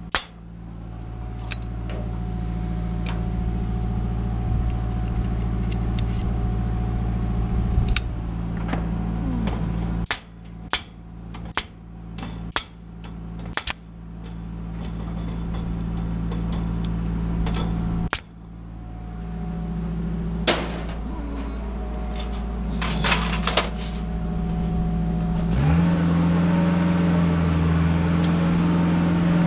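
Pneumatic stapler firing staples through aluminum soffit ribs, sharp snaps in quick runs of several, each rib stapled twice, over the steady idle of the work lift's engine. Near the end the engine speeds up as the lift is driven.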